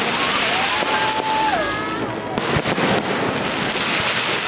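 Aerial fireworks going off continuously: dense crackling with sharp bangs, a brief whistling tone about half a second in, and crowd voices underneath.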